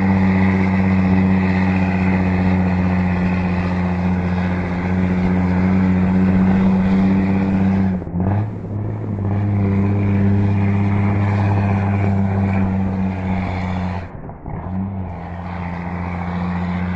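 Heavy truck's diesel engine pulling a load of over a thousand concrete blocks uphill, running at a steady, loud drone. Twice, about eight and fourteen seconds in, the engine note drops briefly and then picks up again.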